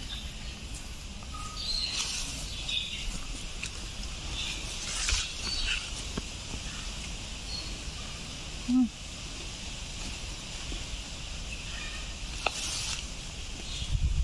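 Rural outdoor ambience: scattered short bird chirps over a steady low rumble, with one short low-pitched call about nine seconds in and a few light clicks.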